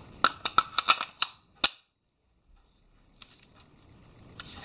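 Sharp clicks and clacks of a Walther Colt M4 Carbine .22 LR rifle's magazine being handled against the rifle and fitted into its magazine well: about eight quick clicks in the first second and a half, then a few fainter clicks near the end.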